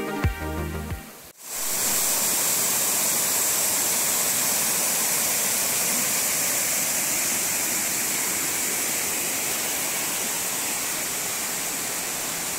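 Background music ends about a second in, and then shallow water rushes steadily over smooth rock slabs and small cascades in a stream.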